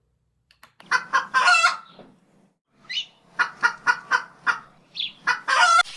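Clucking animal calls: one call about a second in, a quick run of about six short clucks in the middle, and a longer call near the end.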